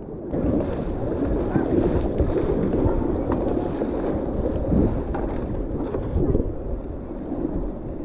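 River water rushing, with wind buffeting the microphone.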